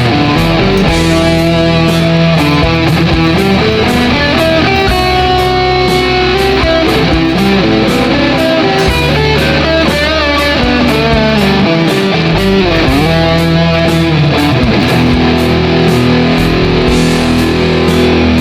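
Electric guitar playing lead lines over a backing track with a steady beat and a bass line.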